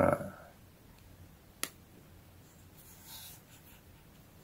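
Quiet handling sounds from a small mirrorless camera being held and turned in the hand: a short knock right at the start, a single sharp click about a second and a half in, and a soft rustle just after three seconds.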